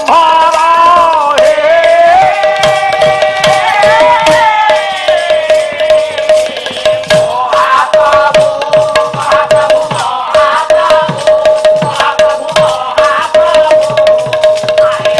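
Odia Pala devotional music: a long, drawn-out sung melody from the lead singer, held and bending in pitch, over a steady beat on a hand drum and brass cymbals.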